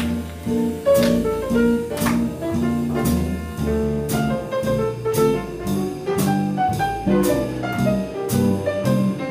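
Jazz combo playing an instrumental passage: a single-note solo line over upright double bass, piano and a drum kit keeping time with cymbal strokes about two a second.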